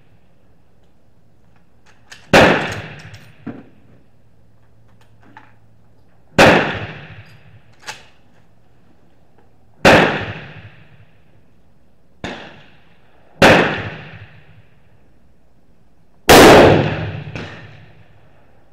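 Rifle shots on a range: five loud shots about three to four seconds apart, each with a short echoing tail, and a fainter shot between the third and fourth.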